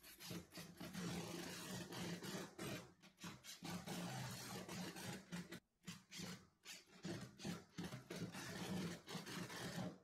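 Cordless drill-driver running in bursts, driving wood screws through a metal pipe flange into stacked wood slices. There are short breaks between runs, a few seconds apart.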